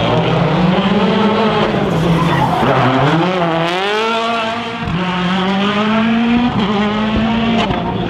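Citroën DS3 WRC's turbocharged 1.6-litre four-cylinder engine being driven hard past close by. The engine note falls as the car lifts off for the corner about halfway through, then climbs again through quick upshifts as it accelerates away.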